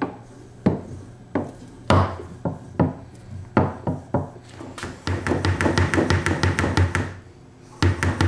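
Foosball ball struck by the rod men and knocking off the wooden table: several sharp single knocks about a second apart, then about two seconds of rapid clicking and rattling.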